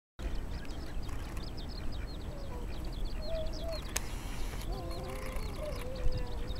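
Domestic ducks giving soft, low, wavering calls from about a third of the way in, over a constant stream of rapid high chirps from small birds and a low wind rumble.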